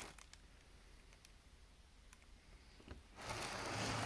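Handling noise: a few light clicks as the model and its packaging are handled, then a louder rustle starting about three seconds in.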